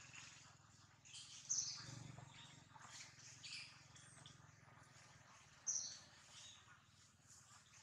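Faint, short high-pitched bird chirps scattered through the trees, two of them louder, about a second and a half in and near six seconds in.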